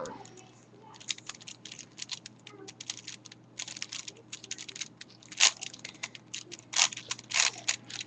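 Plastic clicking and clacking of a 5x5 Rubik's cube's layers being turned by hand: a fast, irregular run of small clicks, with a few louder clacks in the second half.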